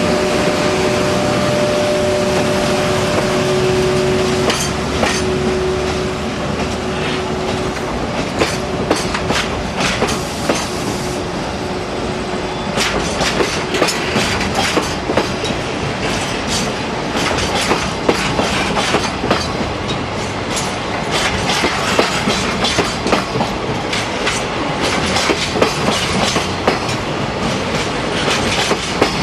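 JR EF81 electric locomotive pulling a container freight train out of the station, with a steady hum for the first few seconds. Then the container wagons roll past with a rapid clickety-clack of wheels over rail joints and points.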